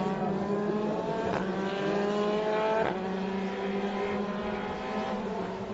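Formula Renault 2.0 single-seaters' two-litre four-cylinder engines accelerating hard. The pitch climbs through the gears, with sharp upshifts about a second and a half in and again near three seconds.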